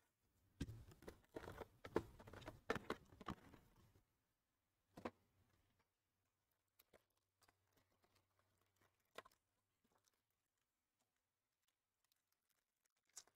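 Hands pulling the packs out of a Topps Museum Collection cardboard hobby box: about three seconds of cardboard rustling and clicking, then a few scattered light taps as the packs are stacked and a foil pack is handled.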